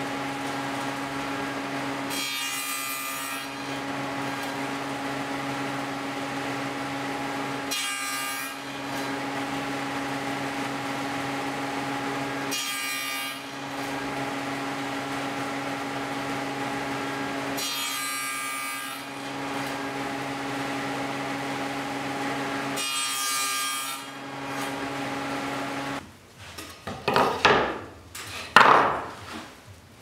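Table saw running steadily while box-joint fingers are cut on a sled: five short rasps, about five seconds apart, as the blade passes through the wood. Near the end the saw sound stops and boards clatter and knock as they are handled and set down.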